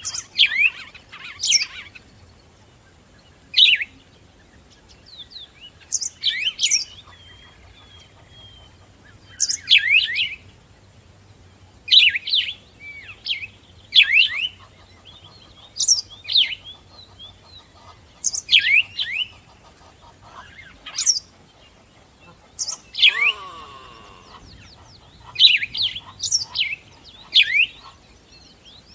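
Birds chirping: short, sharp calls that sweep down in pitch, repeated every second or two.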